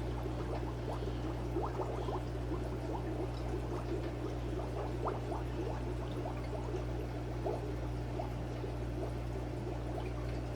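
Air bubbling and gurgling up through air-driven aquarium filters in the tanks, a steady stream of small irregular pops and splashes, over a steady low hum.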